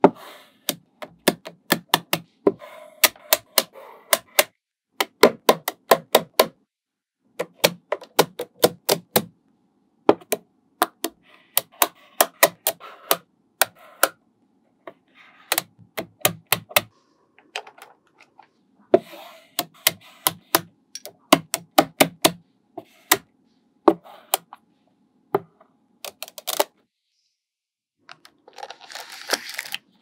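Small magnetic balls clicking as they snap onto one another, in quick runs of sharp clicks, several a second, with short pauses between the runs. Near the end comes a short, noisy rattle.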